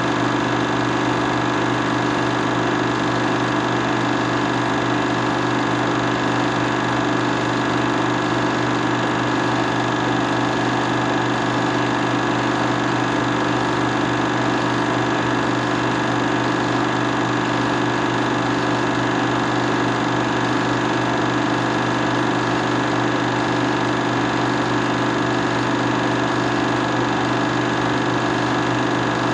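Steady, loud motor hum and whir of a 16mm film projector running at constant speed, unchanging throughout.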